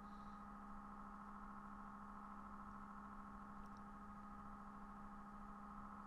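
Near silence: a faint steady electrical hum of the recording's background noise.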